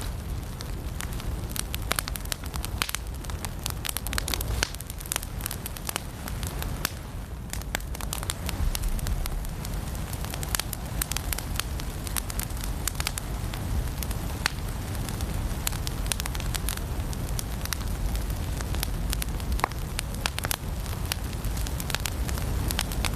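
Firewood burning in a fireplace: frequent, irregular sharp crackles and pops over a steady low rumble of the flames.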